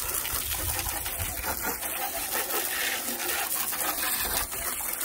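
Garden hose spraying water onto the underside of a riding mower's tipped-up seat and the battery area: a steady hissing splash.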